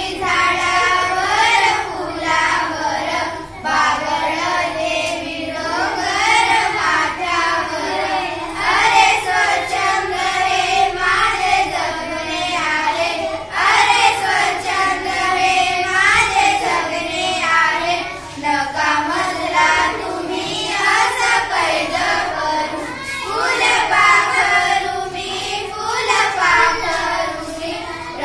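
A group of young schoolgirls singing a Marathi children's poem together in unison, in a steady sung rhythm, with no instruments.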